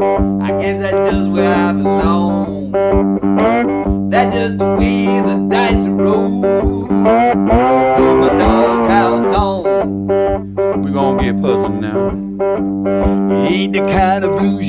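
Background music: plucked guitar with bending notes over a bass line and a steady beat.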